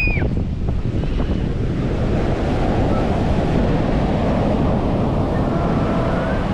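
Ocean surf washing onto a sandy beach, the wash building from about two seconds in, with heavy wind buffeting the microphone.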